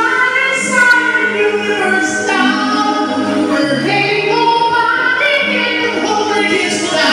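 Women singing a song live into microphones over instrumental accompaniment with a steady bass line, amplified through stage speakers.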